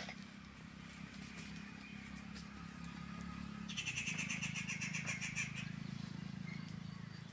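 A bird calls with a quick run of high repeated notes, about ten a second, lasting a couple of seconds near the middle. A steady low hum runs underneath throughout.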